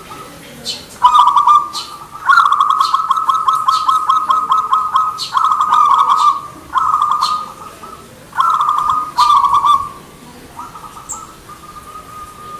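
Zebra dove (perkutut) cooing in rapid trilled phrases. One long run comes about two seconds in, followed by several shorter bursts with short pauses between them.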